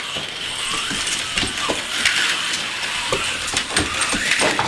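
AFX slot cars running on a plastic race track: small electric motors and gears whirring steadily, with many short clicks and rattles as the cars go round.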